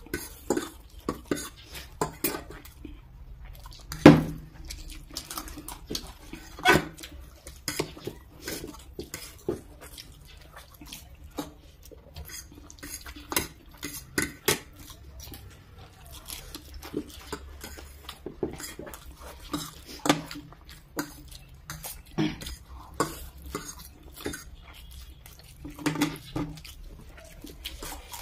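Metal forks clicking and scraping against food trays while two people eat instant noodles fast, in irregular clatters with eating sounds between them. The loudest clack comes about four seconds in.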